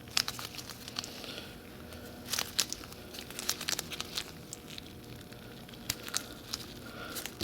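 Old, dried-out plumber's putty being worked and pulled apart by hand, with scattered crackles and small tearing clicks. A few louder clusters come about two and a half and three and a half seconds in. The putty has gone hard and clay-like from years of exposure to air.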